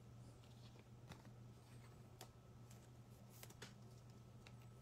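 Near silence: a steady low hum with a few faint, scattered clicks and taps from trading cards being handled.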